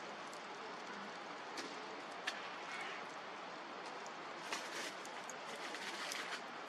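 Wood campfire burning, crackling with a steady hiss and scattered sharp pops, one louder snap about two seconds in and a flurry of small pops near the end.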